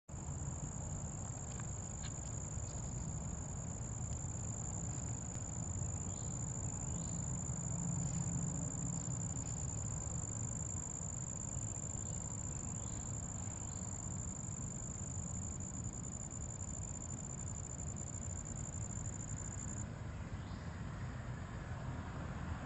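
Insects singing in a steady, unbroken high-pitched trill that cuts off suddenly about twenty seconds in, over a low, even rumble.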